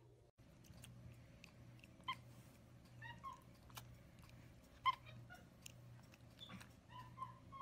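Capuchin monkey giving a few short, faint squeaky chirps, the loudest about five seconds in, amid small clicks and smacks from licking a lollipop. A low steady hum runs underneath.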